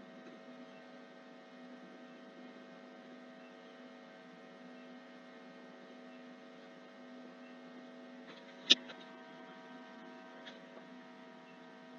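Faint steady electrical hum made of several fixed tones. A sharp click about nine seconds in, and a softer click about a second and a half later.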